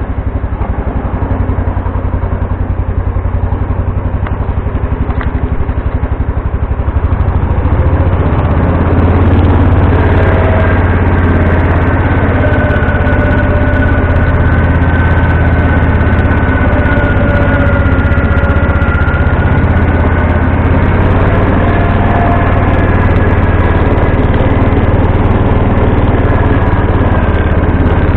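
John Deere 140 H3 garden tractor's engine running steadily, brought up in speed about eight seconds in. From then on a whine that wavers slightly in pitch rides over the engine.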